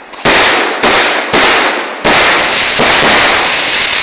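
Fireworks going off: four sharp bangs in quick succession in the first two seconds, each followed by a fading rush of noise. The last one runs on, loud, for about two more seconds.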